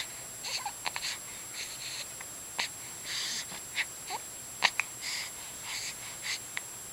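A baby hiccuping: short, sharp hics every second or so, with short breathy sounds in between.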